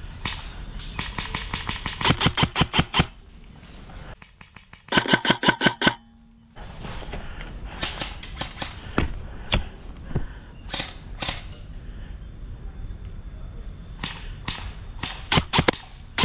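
Airsoft guns firing: scattered single shots throughout, and two rapid bursts of about eight shots a second, one about two seconds in and a louder one about five seconds in.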